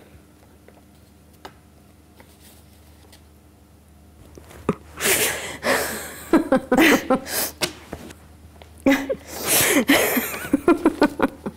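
A few seconds of quiet room tone, then women laughing excitedly in quick, breathy bursts, in two spells with a short pause between.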